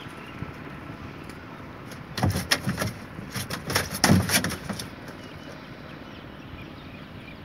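Knocking and rattling as a gill net is hauled in by hand and piled in the boat: a burst of knocks about two seconds in that lasts about two and a half seconds.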